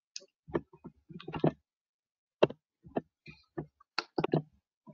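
Irregular clicking and tapping of a computer mouse and keyboard close to the microphone, about a dozen sharp clicks spread unevenly over a few seconds.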